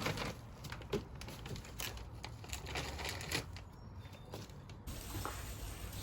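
Close-up handling sounds: irregular clicks and taps with light crinkling, as of objects and packaging being handled by hand.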